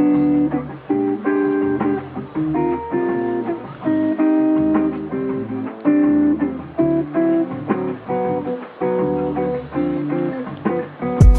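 Lo-fi hip hop instrumental in a breakdown: a melody of short plucked notes with the treble filtered off and the drums dropped out. The full beat with drums cuts back in just before the end.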